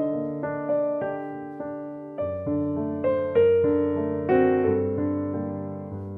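Background music: a soft piano playing a slow melody over held chords, each note striking and fading away.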